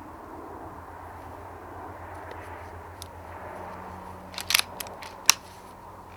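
Kral Puncher K PCP air rifle in use: a quick cluster of sharp clicks and cracks, then one sharp crack about a second later, the sounds of firing and working the action, over a faint steady hum.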